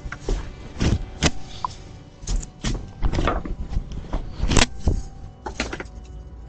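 Repeated thuds and rattles of a front door being kicked and its handle worked, at an uneven pace, picked up by a doorbell camera's microphone, with background music underneath.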